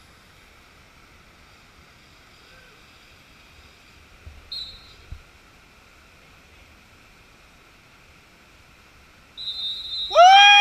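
Faint steady forest background. Near the end, a loud, high-pitched human scream of a person letting go on a rope swing drop, its pitch rising at the start.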